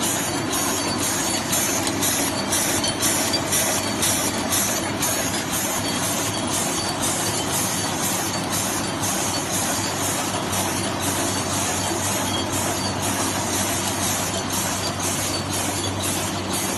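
Automatic cutlery packing machine running: a steady mechanical whirr with an even, quick clacking of about two strokes a second as it feeds and wraps plastic spoons one by one.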